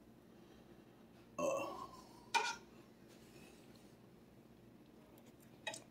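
A person tasting hot soup from a spoon: a short slurp about a second and a half in, then a brief sharp click. A faint click comes near the end.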